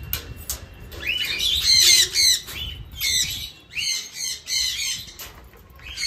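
Parrots squawking: a quick run of shrill, arching calls, about three a second, starting about a second in and easing off near the end.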